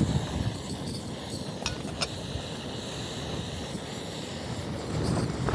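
Gale-force wind blowing across the microphone: a steady rushing rumble that swells near the end.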